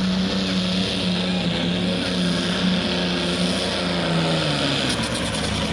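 Turbocharged diesel engine of a John Deere light super stock pulling tractor running flat out under the load of a weight-transfer sled. The pitch holds steady, then sags about four and a half seconds in as the engine is pulled down by the sled.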